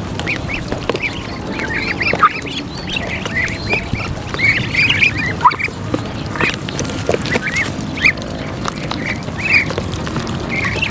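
A flock of Muscovy ducks calling with many short, high, overlapping calls while they feed on wet duckweed from a tub, with a steady noisy bed of bills working the feed.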